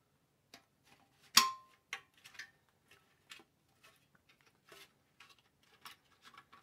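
Plastic dish and feed-horn parts of a Ubiquiti LiteBeam AC Gen 2 being handled. There is a scatter of light clicks and knocks, and one sharp click about a second and a half in that rings briefly.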